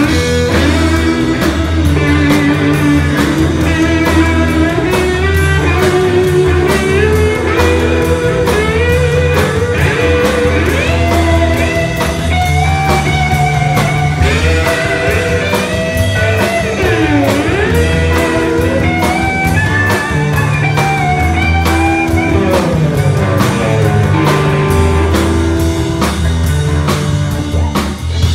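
Live blues-rock band: a Les Paul-style electric guitar plays a lead solo through a Marshall amp, its notes bending and sliding in pitch with a deep swoop about halfway through, over bass guitar and drums.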